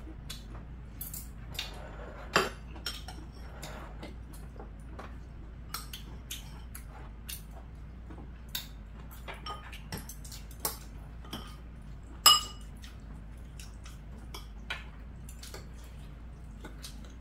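Metal chopsticks and spoons clinking and tapping against ceramic rice bowls while two people eat. The strikes are scattered and irregular, with short ringing, and the loudest come about two seconds in and again about twelve seconds in.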